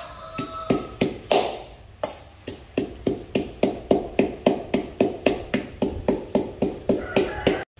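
Wooden pestle pounding garlic in a metal bowl: a steady run of strikes, about three or four a second, each with a short metallic ring. It cuts off suddenly near the end.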